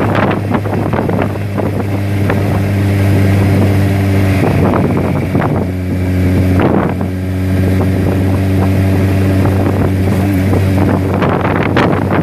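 Wind gusting across the microphone over a steady low machine hum that holds one pitch, briefly dipping twice.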